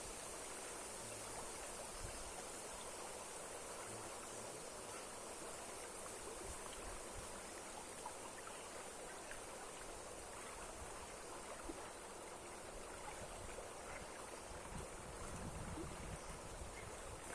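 Steady, even rush of water from a strongly flowing waterfall.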